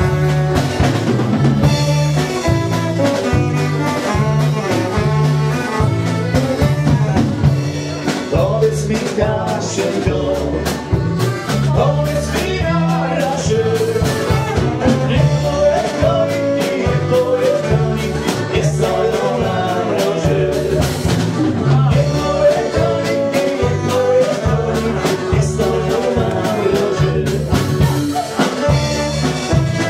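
Live folk dance band playing: brass over a drum kit and a steady bass line with a regular beat.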